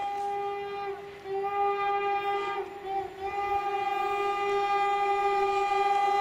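Makrofon horn of a DB Intercity control car sounding a long, steady blast at one pitch. It dips briefly about a second in and again near three seconds, then is held unbroken and grows louder as the train approaches.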